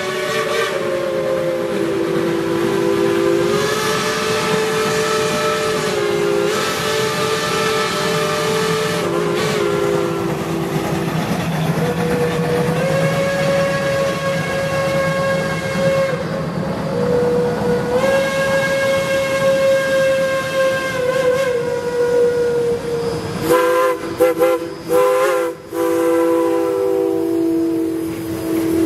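Chime steam whistles of several Cass Shay and Climax geared steam locomotives blowing together in long overlapping blasts, over a hiss of steam. Near the end they break into a run of short toots.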